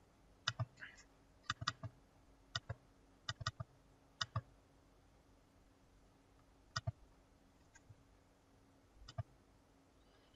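Computer mouse clicking, faint single clicks and quick double clicks in small clusters over a faint steady hum.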